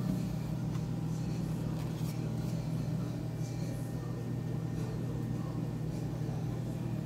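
Steady low hum of a refrigerated display case running, with a few faint light clicks and crinkles of a plastic cake container being handled.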